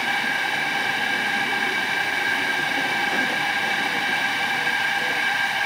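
Steady hiss of steam from a live-steam model locomotive standing in steam, with a few steady whistling tones in it and no chuffing.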